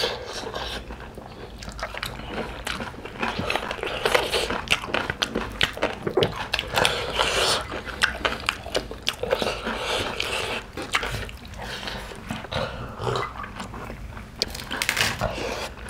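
Chewing and eating sounds of people eating mutton curry and rice with their hands, a dense run of short clicks and mouth noises.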